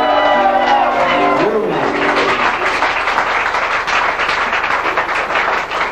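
A song ends on a ringing chord from acoustic guitars with voices over it. From about two seconds in the audience applauds.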